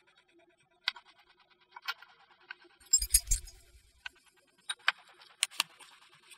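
Broken china plate pieces clicking and clinking as they are set down and shifted around the rim of a mosaic base, with a heavier knock about three seconds in.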